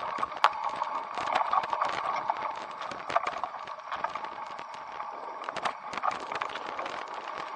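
Irregular knocks, clicks and rattles from moving along a rough dirt trail scattered with dry leaves and sticks, over a steady mid-pitched hum.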